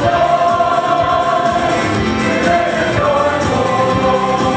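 Mixed church choir of men and women singing a gospel anthem together, holding sustained notes, with a change of chord about three seconds in.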